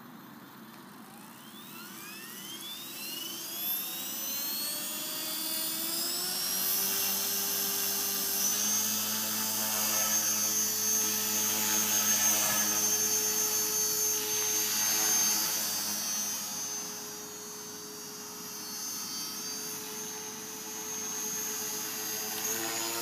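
Align T-Rex 450 Pro V2 electric RC helicopter spooling up: the motor and rotor whine rises steadily in pitch over the first several seconds. It then settles into a steady whine at full head speed, louder, as the helicopter lifts off and hovers.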